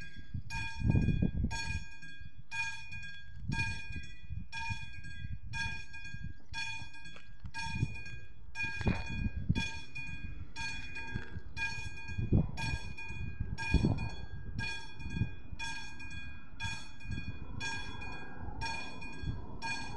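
Railway level crossing warning bell ringing steadily at about two strokes a second, the sign that the crossing is closed for an approaching train. Irregular low rumbles come and go underneath.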